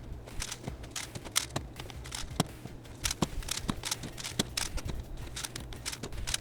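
Plastic Rubik's cubes clacking as they are handled, with many quick, irregular clicks.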